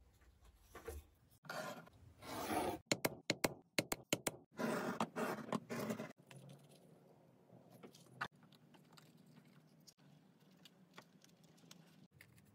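Hand-crafting noises on a cutting mat: paper and leather pieces rustling and scraping, with a quick run of sharp clicks in the middle, then faint scratching as a pattern is worked over the leather.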